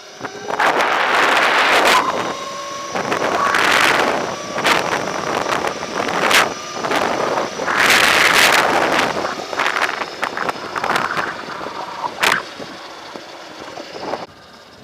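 Wind rushing over the microphone in repeated loud surges while riding a Throne SRPNT electric motorcycle, with two sharp clicks partway through.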